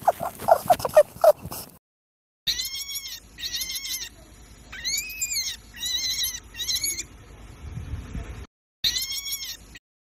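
Rabbit sound effects: a quick run of short, low calls at about six a second, then after a brief gap a string of high-pitched squeals, each rising and falling in pitch over about half a second.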